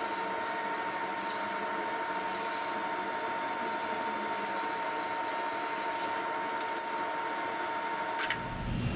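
Brazing torch burning with a steady hiss, with a faint steady whine alongside; it cuts off near the end, where a lower, louder sound takes over.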